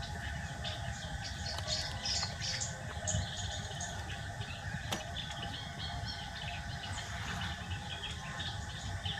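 Birds chirping in short, scattered calls over a steady low rumble, with a single sharp click about five seconds in.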